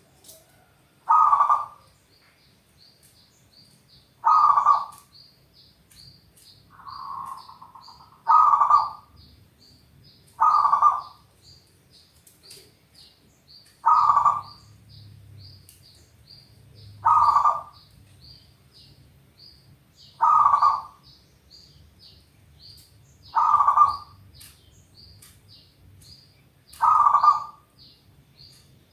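Zebra dove (perkutut) cooing in short repeated phrases, about one every three seconds, with one softer, longer coo among them. A faint high chirp repeats about twice a second behind it.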